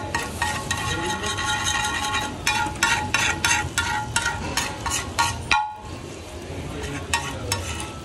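Metal spatula rapidly striking and scraping a steel griddle, ringing clanks in quick runs over a frying sizzle and street background noise. The sound drops out briefly about two thirds of the way in and goes on with fewer, quieter strikes.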